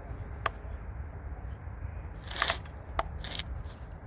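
Hands working a car door lock mechanism and its cables: a sharp click about half a second in, then a short scraping rustle, another click and a second brief rustle in the latter half, over a low steady hum.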